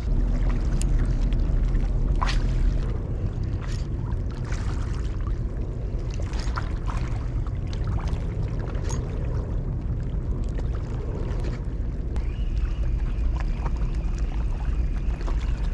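Water sloshing against shoreline rocks with wind rumbling on the microphone, under scattered light clicks from a spinning reel being wound during a retrieve. A faint steady high whine comes in about twelve seconds in.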